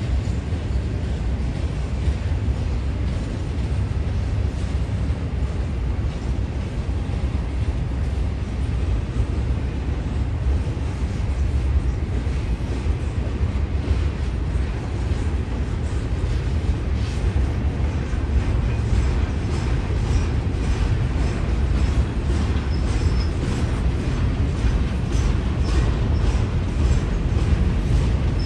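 Double-stack container freight train rolling across a bridge: a steady low rumble of wheels on rails, with more clicking and a faint high squeal in the second half.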